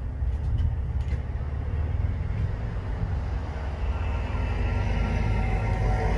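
Level crossing warning bells start ringing about four seconds in, as the crossing is activated for an approaching train. Under them is a steady low rumble.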